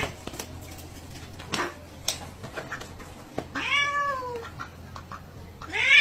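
Domestic cat giving one drawn-out meow that rises and falls in pitch, about halfway through. Near the end there is a louder, harsher cry, and there are a couple of light knocks earlier.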